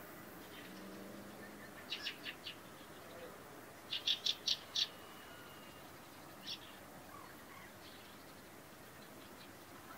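Fieldfare giving its chack call in quick runs of short notes: four about two seconds in, a louder run of five about four seconds in, and a single note later.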